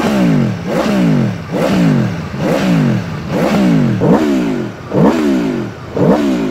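Aprilia Tuono V4 Factory's 1,077 cc V4 engine revved repeatedly in neutral with the bike standing. Each throttle blip, about one a second, sends the revs up sharply, and they fall away before the next.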